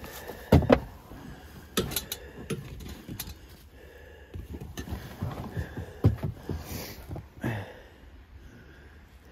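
A person moving about and handling gear: irregular knocks and clanks, the loudest pair about half a second in, with breathing heard between them.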